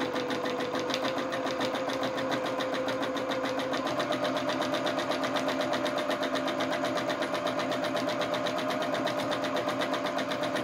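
Janome domestic sewing machine running steadily during free-motion stitching, its needle going up and down in rapid, even strokes over a motor hum. The hum steps up slightly in pitch about four seconds in as the machine speeds up a little.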